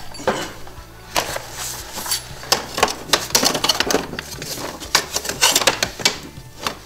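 Snowmobile clutch cover being handled and fitted into place by hand: irregular clicks, knocks and light rattles.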